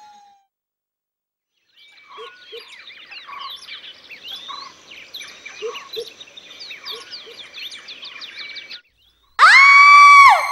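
Several birds chirping and singing for about seven seconds, many quick rising and falling chirps. Near the end a sudden loud, high-pitched shriek, a woman's scream, rises, holds for about a second and drops away.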